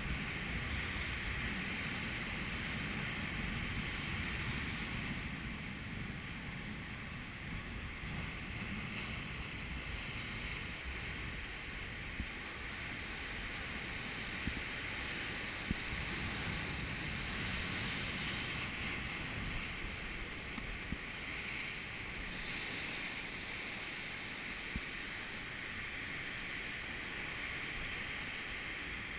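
Sea surf breaking and washing over shoreline rocks in a steady rush, with wind on the microphone. A few faint clicks stand out near the middle.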